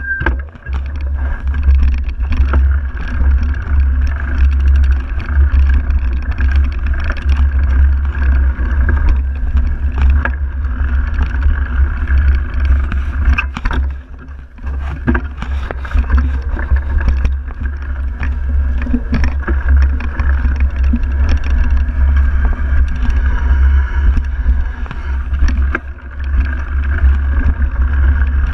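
Mountain bike rolling fast down a dirt forest singletrack, heard from a handlebar-mounted camera: heavy wind and trail rumble with scattered knocks and rattles as the bike rides over bumps.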